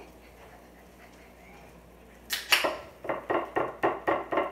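Quiet room tone, then a little over two seconds in a rapid run of about nine sharp smacks from a young child's hands, about four a second.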